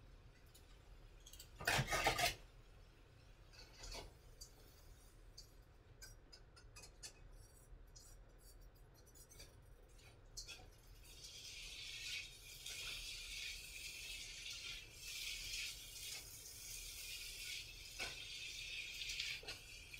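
Aluminium foil crinkling with a few light clinks of cookware, then from about eleven seconds in a steady high sizzle from food frying in a wok as it is stirred.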